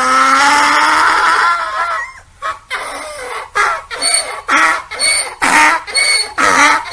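Donkey braying: one long drawn-out note, then a rapid see-sawing hee-haw of short pitched pulses, about two a second.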